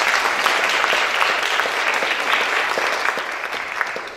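A church congregation applauding with dense clapping that begins to thin out near the end.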